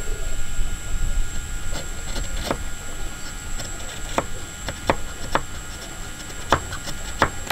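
Hand chisel paring hardwood dovetail pins, the blade scraping and cutting thin shavings, with about six sharp clicks spread irregularly as it bites and lifts. A steady low rumble and a faint high-pitched whine run underneath.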